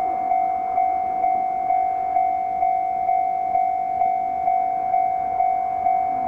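Japanese railway level-crossing alarm ringing: a single steady-pitched ding repeated about twice a second, the warning that a train is approaching.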